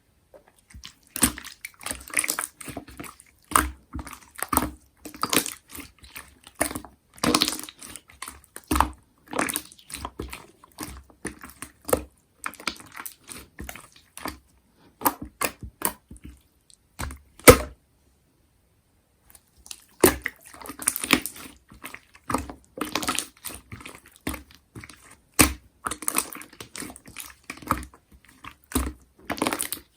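Slime being squished and pressed, making irregular sticky clicks and pops, with a pause of about two seconds roughly two-thirds of the way through.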